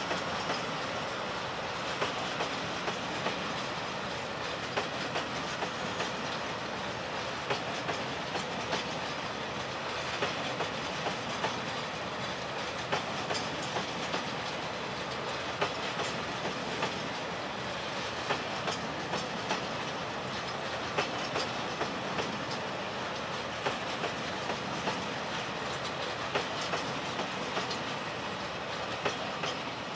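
Loaded Taki 1000 tank wagons rolling past on the rails, their wheels clacking in a regular rhythm over rail joints above a steady rolling rumble. The sound eases off a little near the end as the last wagons go by.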